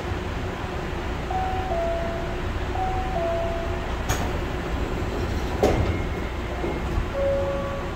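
Steady low hum of a monorail car standing at a station with its doors open. A two-note falling electronic chime sounds twice in the first half, two sharp knocks follow, and a single steady chime tone comes near the end.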